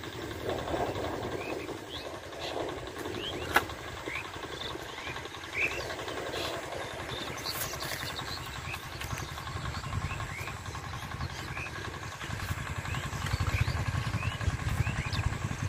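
Small birds chirping, many short rising chirps, over the low rumble of a distant engine that grows louder near the end. There is one sharp click about three and a half seconds in.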